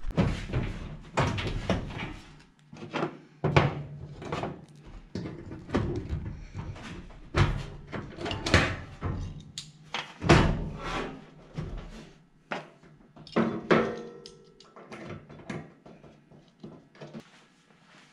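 Irregular metal knocks and clunks as a welded sheet-metal dash panel is set into a car body and fastened with clecos, with music underneath.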